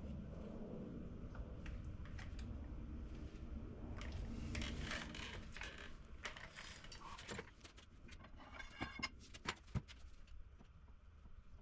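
Metal tools and parts clinking and rattling as they are handled, with a few sharp metallic knocks near the end; a low rumble runs through the first few seconds.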